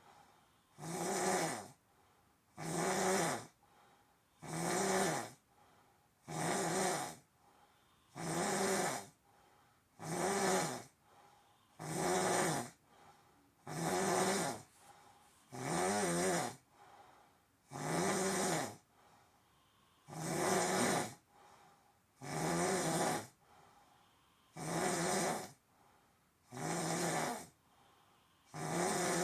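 Snoring: one long, rasping snore on each breath, about every two seconds, in a steady rhythm.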